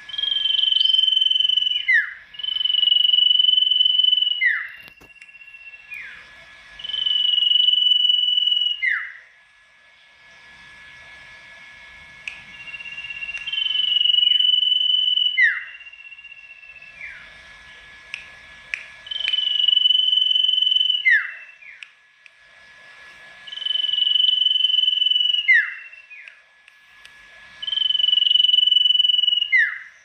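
Sirtu songbird singing loud phrases: each a long steady whistled note of about two seconds that ends in a quick falling note, repeated six times with short gaps, over a faint steady high tone.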